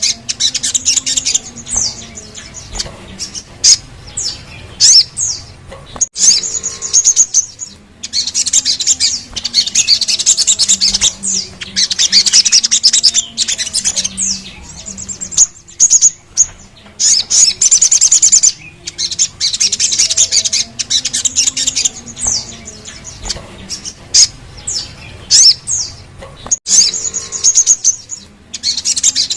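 Little spiderhunter (sogon) singing: bouts of fast, rattling high trills about two seconds long, broken up by sharp, quick chirps that slide up and down, repeating again and again. A faint low hum runs underneath.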